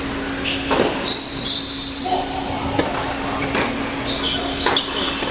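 Tennis rally on an indoor hard court: a sharp pop of ball on racquet or court every second or so, with short high sneaker squeaks and a steady low hum.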